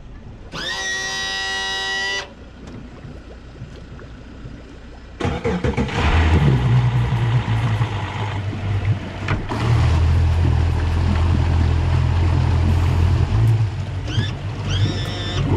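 A short steady electronic tone about half a second in. A Yamaha outboard motor then cranks and starts about five seconds in and settles into a steady low running drone. Two brief rising tones come near the end.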